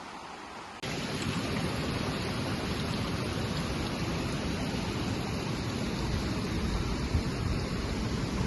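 Waterfall's rushing water, a steady even noise that jumps abruptly louder about a second in, where the footage cuts to a closer or different shot.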